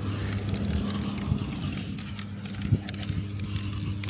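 Aerosol spray can of clear coat hissing steadily as it is sprayed onto the car's plastic bumper, over a steady low hum.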